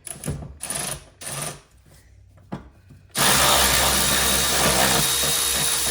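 Milwaukee cordless ratchet spinning a 10 mm deep socket to back out the battery tie-down bolt. A few short scrapes come first, then about three seconds in the ratchet's motor starts a loud, steady whir.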